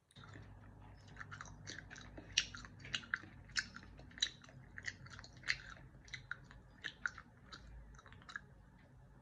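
Irregular clicks and smacks, a few a second, from hands patting an oily serum onto the face.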